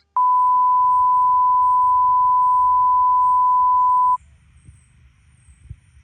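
An edited-in bleep, a single pure 1 kHz beep tone held steady for about four seconds and cut off sharply, of the kind used to censor speech. Faint low background noise follows.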